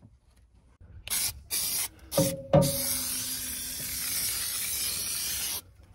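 Aerosol can of spray adhesive hissing onto a van's bare sheet-metal wall: two short bursts, a brief knock, then one long spray of about three seconds that cuts off sharply near the end.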